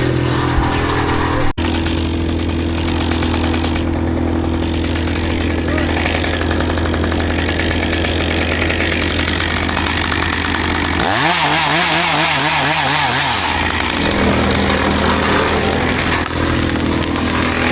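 Petrol chainsaw idling steadily, revved up for about three seconds past the middle as it cuts into wood.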